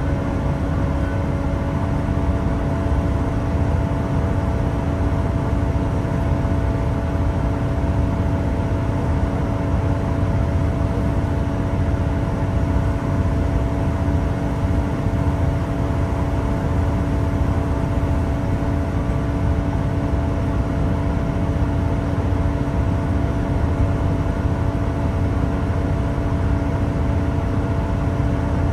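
Inside a Class 166 diesel multiple unit under way: the underfloor diesel engine and transmission give a steady hum of several tones over a continuous low rumble from the running gear.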